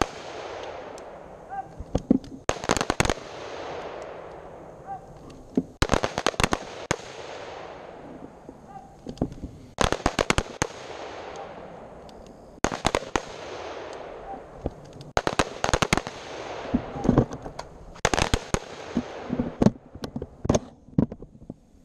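Rifle gunfire from an AR-style rifle: quick strings of several shots every two to three seconds, each string trailing off in a rolling echo.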